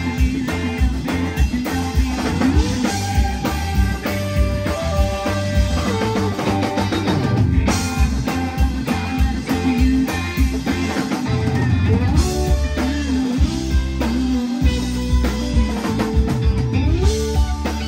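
Live rock band playing: electric guitars, keyboard and drum kit together, with bending lead-guitar lines over a steady beat.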